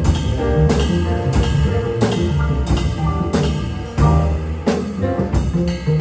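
Live jazz combo of piano, bass and drum kit playing a mid-tempo groove, with regular drum hits over the bass line.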